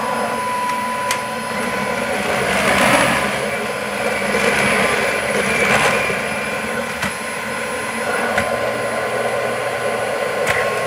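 Dyson ball upright vacuum cleaner running on a rug: a steady high motor whine with a rushing airflow that swells and eases as it is pushed and tilted.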